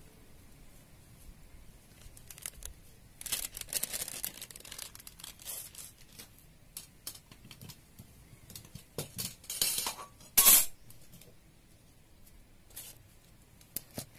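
Crinkling, rustling and tearing of a packet being handled, in irregular bursts, the loudest about ten and a half seconds in, with a sharp click near the end.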